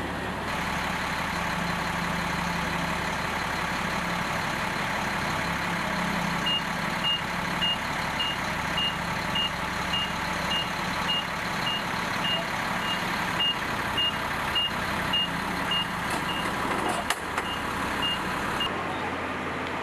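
A propane forklift's engine running steadily while its reversing alarm beeps at an even pace, a bit under two beeps a second, starting about a third of the way in and stopping shortly before the end. A single sharp click comes near the end.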